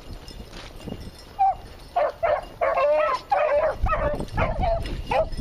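Rabbit-hunting dogs barking and baying in a run of repeated, drawn-out calls that start about a second and a half in. This is typical of hounds giving voice while running a rabbit's trail.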